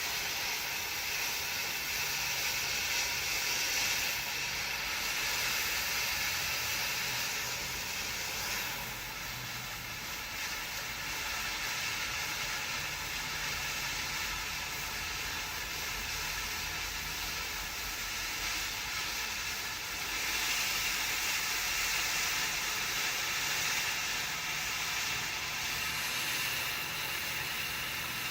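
Consumer firework fountain burning: a steady, loud hiss of spraying sparks that eases a little about a third of the way through and swells again about two-thirds in.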